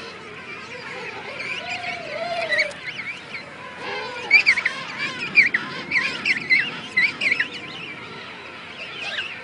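A colony of juvenile king penguins calling: many short, high whistling calls overlapping one another, densest and loudest from about four to seven and a half seconds in, with a few lower warbling calls mixed in.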